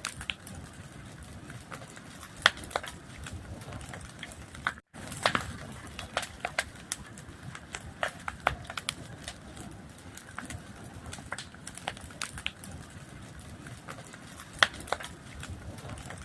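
Wood fire crackling, with frequent sharp pops and snaps of varying loudness over a steady low rush of burning. The sound cuts out completely for a split second about five seconds in.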